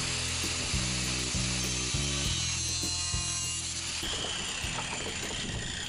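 Angle grinder cutting through a clear plastic strip, a steady grinding noise that changes character about four seconds in.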